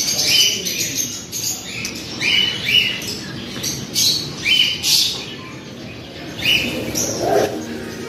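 Many small caged birds chirping, short high calls coming about once or twice a second and overlapping.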